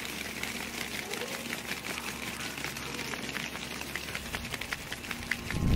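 Rapid, irregular light clicks or taps over a steady hiss, with a louder low rumble coming in just at the end.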